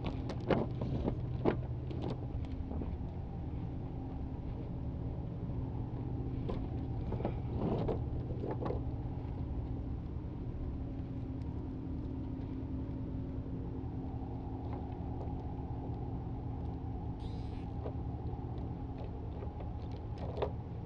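A motor's steady low drone, with a few sharp clinks of steel anchor chain links knocking together as the chain is handled on the wooden deck: a couple near the start, a cluster in the middle and one near the end.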